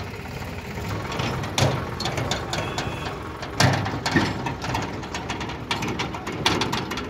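Sonalika RX 50 DI tractor's diesel engine running while it pulls an empty steel tipping trailer over rough ground, with irregular metallic clanks and rattles from the trailer body, the loudest knocks about one and a half and three and a half seconds in.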